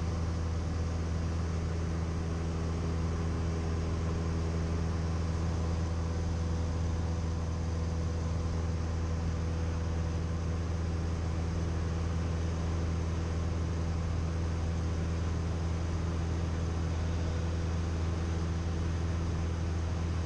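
Cessna 172M's four-cylinder Lycoming engine and propeller running steadily in cruise, a constant low drone heard inside the cabin.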